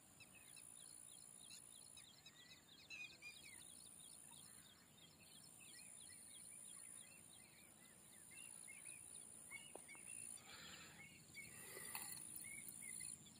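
Faint outdoor ambience with many small birds chirping, in quick repeated calls.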